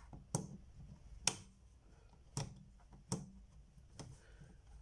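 Picture-frame back being closed: flexible retaining levers pushed down with a screwdriver, clicking into place. There are four sharp clicks about a second apart and a fainter one near the end.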